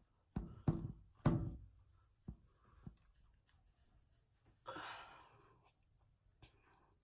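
Hands rubbing gritty facial scrub over wet skin: a few short strokes in the first second and a half, then faint touches. There is a sniff about five seconds in, from a nose stuffy with allergies.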